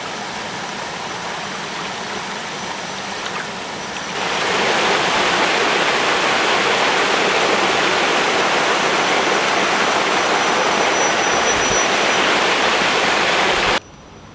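Water rushing over rock in a shallow stream, then a louder, closer waterfall from about four seconds in, steady and full. It cuts off abruptly near the end to a much quieter background.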